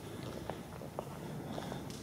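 Footsteps on a hard floor: short light steps about every half second, over a steady low hum of room noise.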